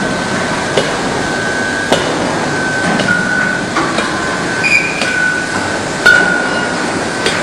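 Induction melting furnace running with a steady high-pitched whine that shifts slightly in pitch, over loud foundry noise, with irregular sharp metallic knocks about once a second.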